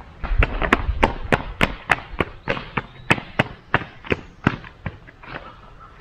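Stamping mats being tamped into fresh stamped concrete with a hand tamper, pressing in the veining texture. Sharp knocks come about three times a second for roughly five seconds, then stop shortly before the end.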